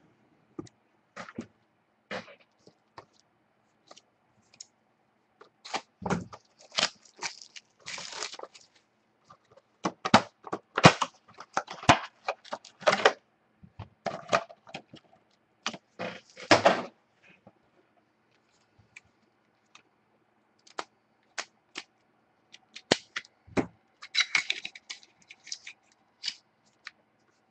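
A box of Spectra football cards being opened by hand: crackling and rustling of cardboard and packaging with sharp clicks, in two busy spells with a quieter stretch between, and a couple of dull knocks as the box is handled.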